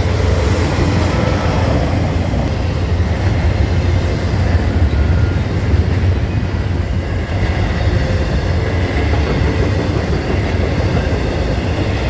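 Norfolk Southern freight train rolling past: a steady, loud rumble of the locomotive and cars running on the rails, with no horn.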